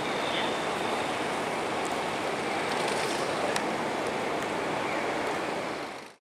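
A steady rushing noise, even and without any pitch, with a few faint ticks, that fades out about six seconds in.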